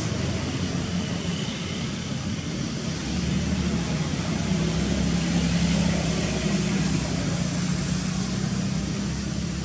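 A motor's steady low drone under a hiss of outdoor noise, growing louder about three seconds in and easing off near the end, as if passing by.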